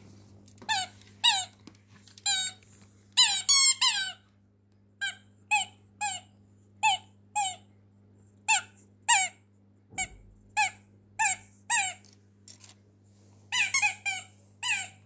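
A Pomeranian chewing an orange rubber squeaky toy, making it squeak again and again: about two dozen short, high squeaks, each dipping slightly in pitch, coming singly and in quick pairs. A low steady hum runs underneath.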